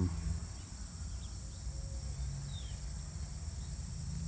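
Steady outdoor insect chorus, a continuous high trilling, over a low rumble, with a faint short chirp about two and a half seconds in.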